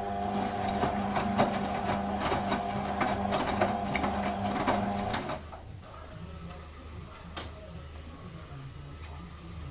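Hotpoint WM31 washing machine tumbling its wet wash load: the drum motor runs with a steady hum under the thumps and slaps of falling laundry, then stops about five seconds in. A couple of seconds later there is a single sharp click, the machine's signal to change tumble direction.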